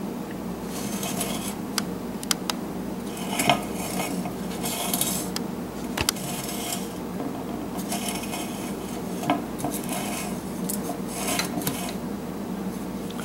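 Hard objects clinking and scraping on a countertop: a dozen or so sharp clicks and short rattling scrapes at uneven intervals, over a steady low hum.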